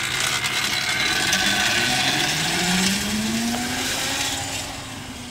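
Electric motorcycle (a Honda CB750 converted to electric drive) whining as it pulls away and accelerates, the whine rising steadily in pitch, then fading as the bike rides off down the street.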